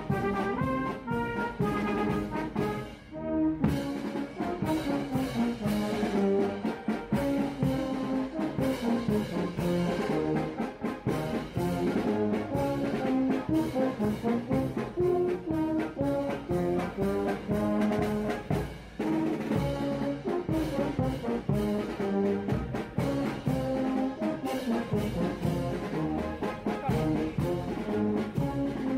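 Italian town brass band playing a tune, brass and saxophones together, with short breaks between phrases about three seconds in and again near nineteen seconds.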